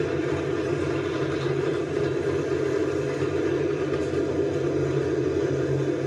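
Sears Craftsman garage door opener motor running steadily as it drives the door, heard played back through computer speakers.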